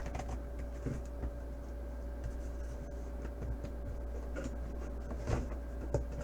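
Light scratching and rustling of packaging being handled as a boxed football helmet is unpacked, with scattered small clicks and a few stronger ones about five seconds in, over a steady low electrical hum.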